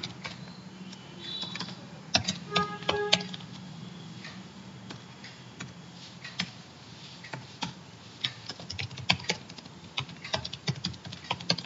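Computer keyboard keys clicking in short, irregular bursts as code is typed, over a faint steady low hum.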